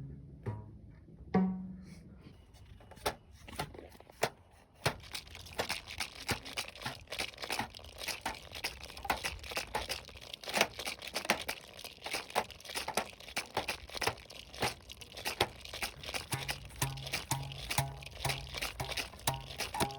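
Homemade instruments made from recycled materials being played. A few low plucked notes open, then a dense, irregular crackling and rattling sets in and carries on, with repeated low plucked notes returning near the end.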